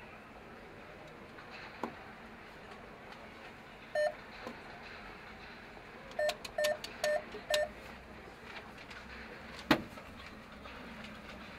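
Short electronic beeps over a steady street hum: one beep, then four in quick succession about two seconds later. A sharp knock comes near the end.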